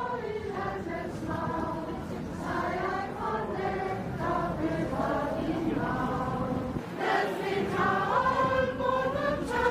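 A large crowd of people singing a Danish song together, many voices holding a slow melody.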